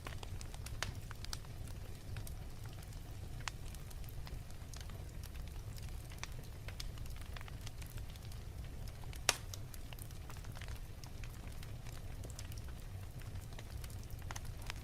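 Wood fire crackling in a fireplace: a steady low rumble with scattered sharp snaps and pops, the loudest pop about nine seconds in.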